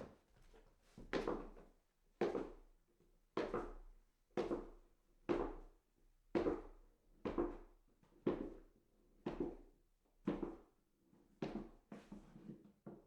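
Footsteps walking up stairs: about a dozen heavy steps at roughly one a second, each a dull thud that dies away quickly.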